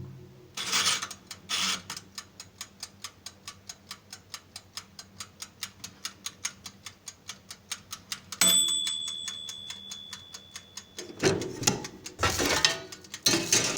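Clockwork ticking, fast and even at about four ticks a second. About eight seconds in, a single bell ding rings out and fades over the next few seconds while the ticking goes on. Loud noisy bursts follow near the end.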